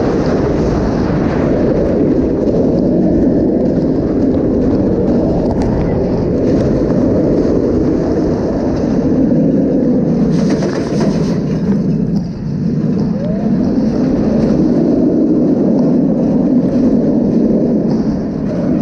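Roaring wind on the microphone mixed with the rumble of a Bolliger & Mabillard steel roller coaster train running at speed along its track, heard from the front row. The noise stays loud and steady, easing briefly about twelve seconds in.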